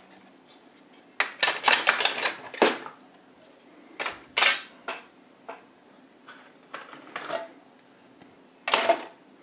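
Small salvaged projector parts (screws, lens pieces, circuit boards) clattering and clinking as they are handled and sorted. There are bursts of clatter about one and four seconds in, a few light ticks, and a louder clatter near the end.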